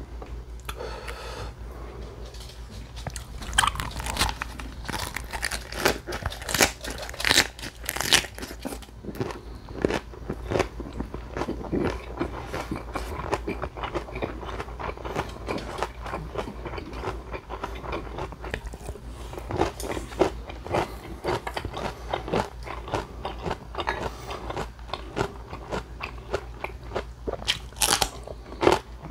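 Close-up eating sounds: wet chewing and crisp crunching of raw napa cabbage leaf wraps and kimchi, with sharp irregular bites throughout and a loud crunch near the end.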